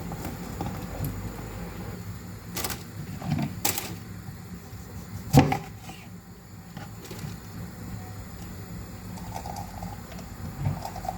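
Kitchen knife knocking on a cutting board three times while citrus is cut in half, the third knock the loudest, over a low steady hum.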